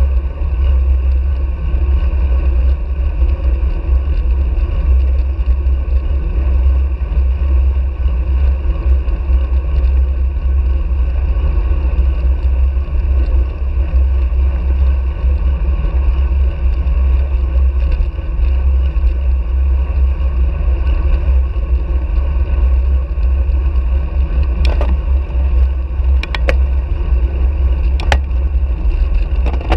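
Wind buffeting a handlebar-mounted action camera's microphone on a road bike at speed: a loud, steady low rumble mixed with tyre and road noise. A few sharp clicks come near the end.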